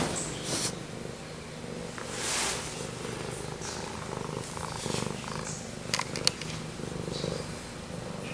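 Domestic cat purring steadily right up against the microphone. A soft rustle comes about two seconds in, and a few sharp clicks around six seconds in.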